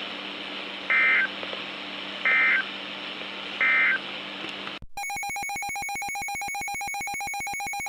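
Emergency Alert System end-of-message signal: three short screechy digital data bursts about a second and a half apart, over a low hum and hiss of broadcast static. It marks the end of the alert. About five seconds in it cuts to a steady, buzzy electronic tone with many overtones.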